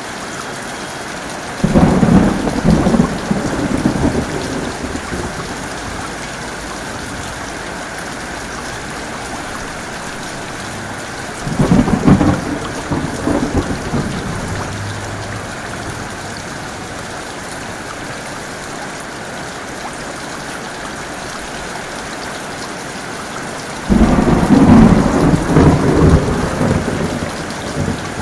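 Steady heavy rain with three thunderclaps. Each clap breaks in suddenly and rumbles away over a few seconds: one near the start, one in the middle and one near the end.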